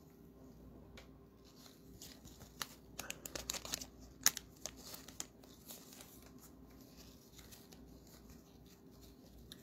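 Cellophane wrapper of a trading-card pack being torn open and crinkled: faint crackles and ticks, thickest from about two to five seconds in, with one sharper click a little after four seconds.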